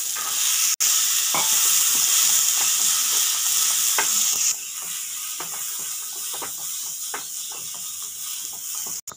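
Boiled peanuts sizzling in hot sesame-oil tempering in a non-stick pan while a wooden spatula stirs and tosses them, with scattered scrapes and knocks of the spatula on the pan. The sizzle is louder at first and settles to a softer hiss about halfway through.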